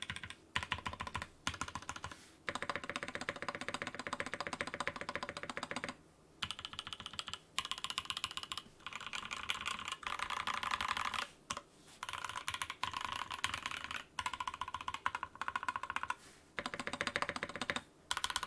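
Sam S80 mechanical keyboard being typed on fast, keystrokes clattering in bursts of a second or more with brief pauses between them.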